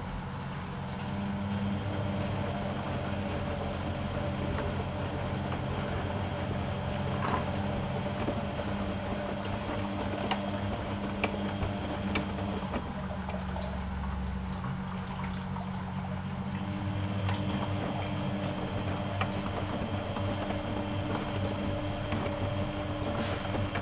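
Privileg 370 S washing machine running, with a steady motor hum and water in the drum, with a few faint clicks. The hum changes partway through, then settles again.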